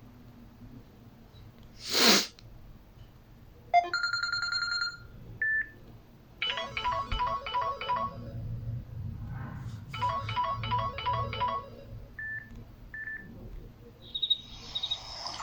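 Samsung Galaxy Xcover2 mobile phone playing ringtone previews: a brief whoosh, a short chime, then a quick repeating melody played twice, with a few short single beeps in between and another tune starting near the end.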